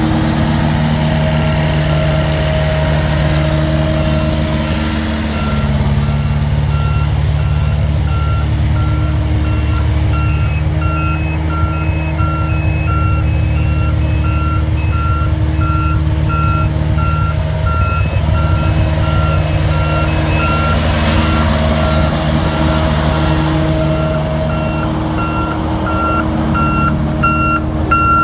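Diesel engines of road-paving machinery running steadily, with a reversing alarm beeping over them. The beeping repeats at an even pace and grows louder near the end.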